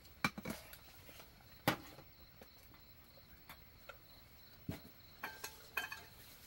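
Spoons and chopsticks clicking and knocking against bowls and plates during a meal: scattered light taps, the loudest about a second and a half in and a small cluster near the end, some ringing briefly. Under them is a faint steady high chirring of insects.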